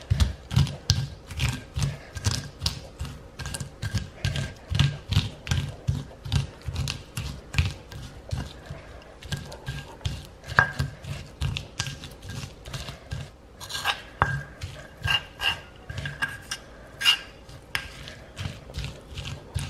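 Stone pestle grinding and crushing cashew nuts with fried chilli paste in a volcanic-stone mortar (cobek and ulekan): a steady rhythm of about two to three grinding strokes a second, with sharper stone-on-stone clicks now and then. The nuts are being crushed coarsely for a cashew sambal.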